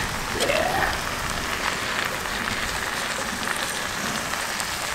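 Green beans, onions and cabanossi sausage sizzling and crackling steadily in a hot cast-iron Dutch oven while canned chopped tomatoes are tipped in to deglaze the pot.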